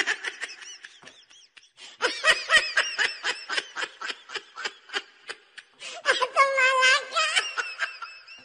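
High-pitched cartoonish laughter as a sound effect: quick ha-ha-ha beats, about five a second, with a short lull about a second in and a drawn-out high note about six seconds in.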